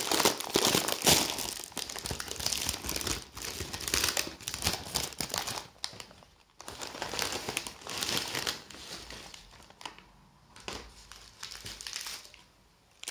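Plastic crisp packet crinkling as hands pull it open and handle it. The crinkling is loudest for the first five seconds, breaks off briefly about six seconds in, and thins to a few scattered rustles near the end.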